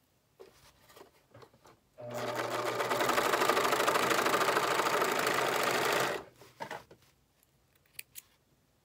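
Sewing machine running steadily for about four seconds while stitching a seam, then stopping abruptly. Light handling clicks come before and after the run.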